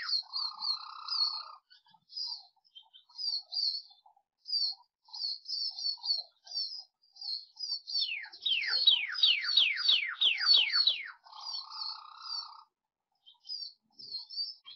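Male northern cardinal singing: a run of about ten quick falling whistles about eight seconds in, closed by a low buzzy roll; the same roll ends a song just at the start. Short high notes are scattered between the songs.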